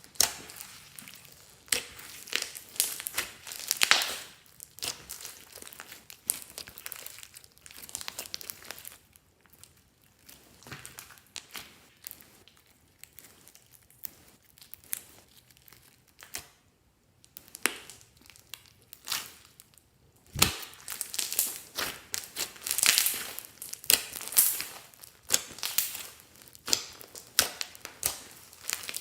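Glossy slime being squished and stretched by hand, giving irregular sticky clicks and crackles. The crackles thin out in the middle, then come thick again after a dull thump about two-thirds of the way through.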